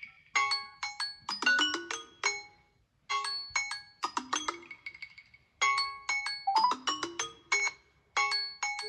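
Smartphone ringtone: a short run of bright, marimba-like notes repeating about every two and a half seconds.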